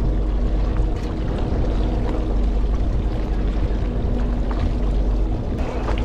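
Fishing boat's engine running steadily: a continuous low rumble with a hum, with a few faint knocks.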